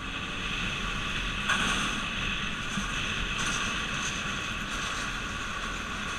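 Car driving at highway speed: steady road and wind noise over a low rumble, swelling slightly about a second and a half in.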